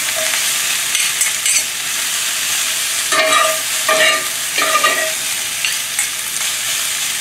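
Mushrooms and snow peas sizzling in butter and sesame oil in a cast iron skillet while being stirred, with a spatula scraping and knocking against the pan several times, mostly around the middle.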